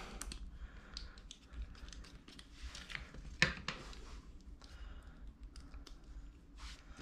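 Small scattered clicks and taps of plastic phone-mount parts and tiny screws being handled on a table, with one louder knock about three and a half seconds in.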